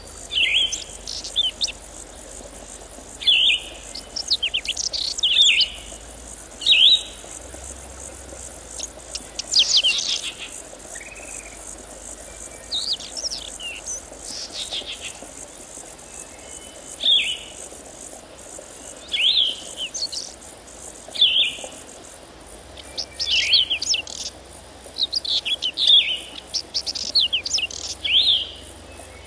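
Small songbirds singing: short bursts of quick, steeply falling chirps every second or two, over a steady, high insect trill like crickets.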